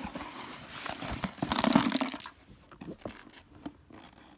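Cardboard shipping box being cut and torn open: packing tape and cardboard ripping with crinkling, loudest about two seconds in, then a few lighter rustles and taps.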